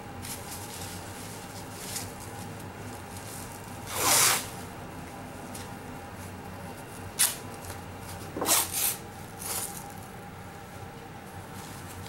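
Adhesive tape pulled off its roll in short ripping strokes: a long rip about four seconds in, then a sharp short one, a double rip and a smaller one between about seven and ten seconds, with faint handling rustle between.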